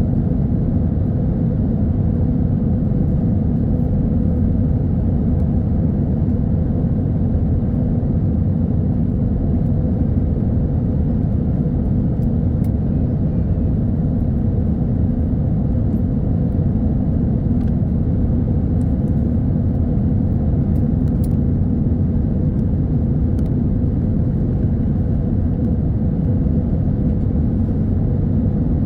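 Airliner cabin noise in flight: a steady, deep rumble of engines and rushing air, with a faint even hum above it and no change throughout.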